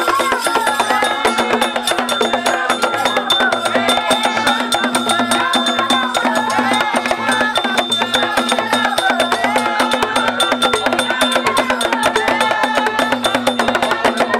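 Itsekiri traditional drum music: drums and wooden percussion struck with sticks in a fast, steady beat, with voices singing over it.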